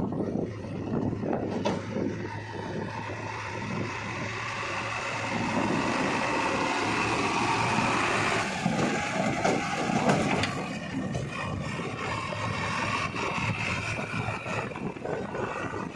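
JCB 3DX backhoe loader's diesel engine running as the machine drives along the road with a loaded front bucket. A higher whine rises in the first half and drops away about eight seconds in.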